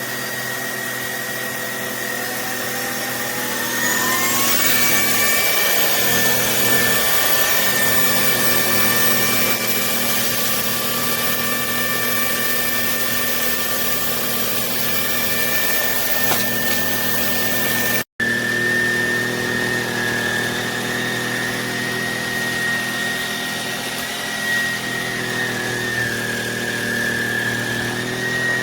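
Handheld cordless vacuum cleaner running with a steady high-pitched motor whine. Its pitch climbs about two to four seconds in, then holds steady. The sound cuts out for an instant about 18 seconds in.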